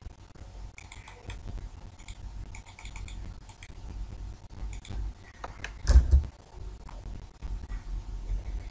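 Computer keyboard and mouse clicks: a quick run of key and button clicks in the first few seconds, then a single louder thump about six seconds in.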